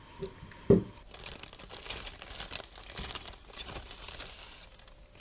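Scissors knocked down on the table about a second in, followed by thin clear plastic wrapping crinkling and rustling as it is handled and pulled away from a cutlery pack, dying down near the end.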